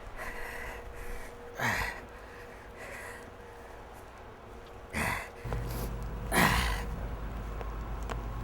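A man's heavy breaths and gasps close to a clip-on microphone, a few sharp rushing exhales several seconds apart. A low steady rumble comes in about halfway through.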